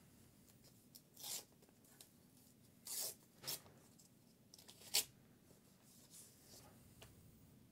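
A foil or plastic card-pack wrapper being torn open by hand: a few short rips, the sharpest about five seconds in.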